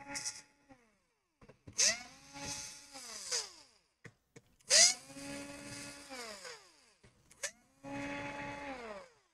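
Small electric screwdriver motor running in short bursts, three full runs after a brief one at the start. Each run spins up, holds a steady whine for about a second and a half, then winds down, as screws are driven out during laptop disassembly. Short clicks fall between the runs.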